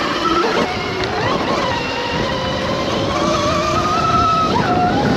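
Throne Serpent electric dirt bike accelerating on a dirt trail: its motor whine rises slowly in pitch and dips near the end, over a steady rush of wind and tyre noise.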